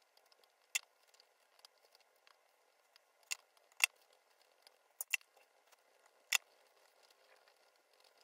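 Faint rubbing of a cloth buffing the toe of a polished leather shoe, with about six sharp little clicks from handling scattered through.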